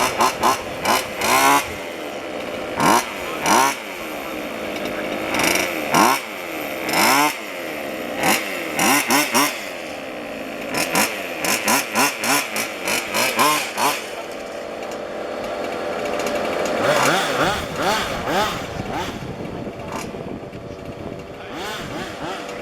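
Several 1:5 scale petrol RC cars' small two-stroke engines racing, their pitch rising and falling over and over as the drivers work the throttle. There are many short, loud throttle blips through the first half, then a smoother swell of engine sound.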